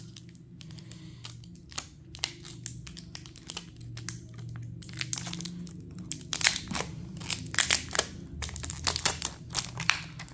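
Clear plastic protective film being peeled off a new smartphone, crinkling and crackling in quick irregular snaps, sparse at first and much denser from about halfway through, over a steady low hum.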